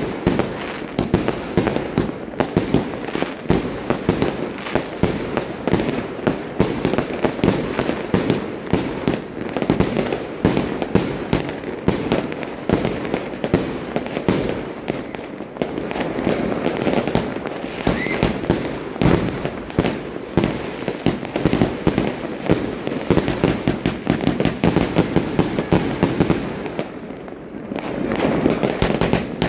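Fireworks firing in a rapid barrage of bangs and crackles, many a second, with a short lull about two seconds before the end before the shots start again.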